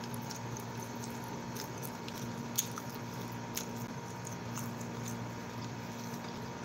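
Close-up eating sounds: chewing and wet mouth noises as rice and curry are eaten by hand, with a few short sharp clicks, over a steady low hum.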